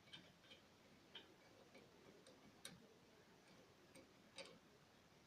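Faint, irregular clicks from a socket ratchet as the lower brake caliper guide-pin bolt is undone, a few strokes at a time.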